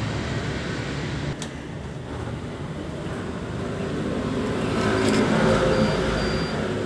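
Steady background rumble with a click about 1.4 s in. Around 5 seconds in, a few clicks follow and a short motor whir rises over the rumble as a queue-ticket kiosk's printer feeds out a paper ticket.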